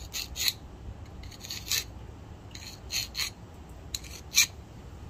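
Flat hand file drawn across the edge of a steel open-end wrench in about eight short, uneven rasping strokes, the loudest near the end. The freshly cleaned file is biting into the metal and cutting.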